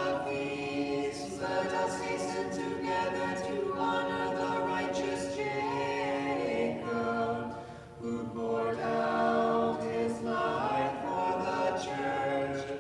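Orthodox church choir singing a vespers hymn a cappella in held chords, with a short break for breath about eight seconds in.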